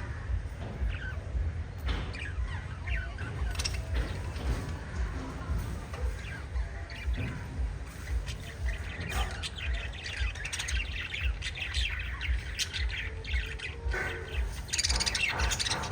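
Several lovebirds chirping in quick, short overlapping calls, busiest near the end, over a steady low rumble.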